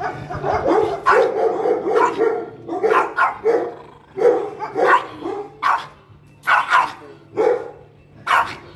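A caged dog barking in a rapid run of sharp barks, about two a second, at a hand held out to its wire crate.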